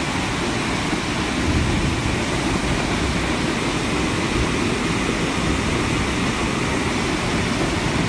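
Flash-flood torrent rushing down a steep street: a steady, loud roar of churning water.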